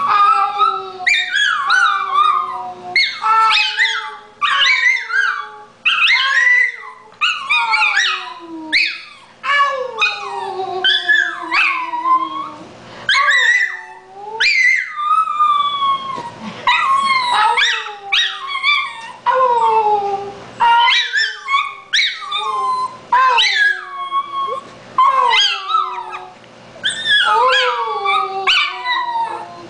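Small dog howling over and over: a long string of short howls, each falling in pitch, about one a second.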